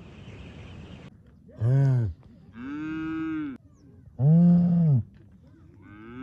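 Cattle mooing: four separate moos, each rising then falling in pitch, some deep and some higher, the deepest and loudest about four seconds in and the last still going at the end.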